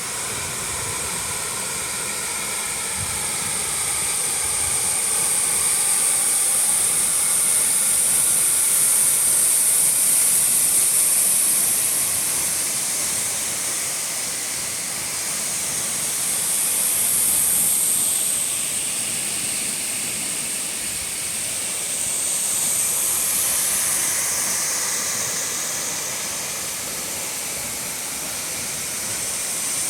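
Horsetail Falls, a tall waterfall, pouring steadily: a constant loud rushing hiss that slowly swells and eases.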